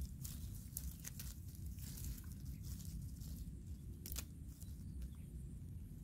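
Steady low rumble of wind on the microphone, with scattered faint clicks and rustles of twigs and leaves as a young monkey climbs and picks through a bush, and one sharper snap about four seconds in.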